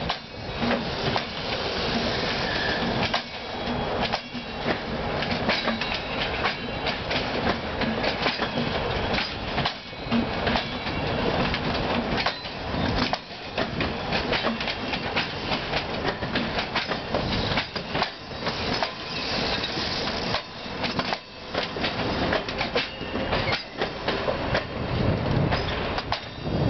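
Passenger coaches of a train rolling past. Their wheels rumble on the rails and clatter over the rail joints in a continual, uneven series of knocks.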